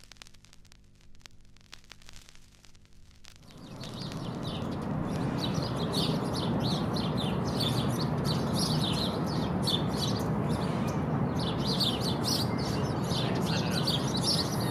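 A faint hum, then outdoor ambience fades up about four seconds in: many small birds chirping and twittering over a steady low rush of background noise.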